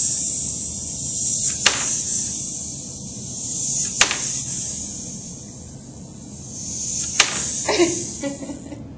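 Wind-up toy monkey running on a tabletop: a steady high whir from its clockwork that swells and fades, with a sharp click every two to three seconds, four in all. It runs down and stops just before the end.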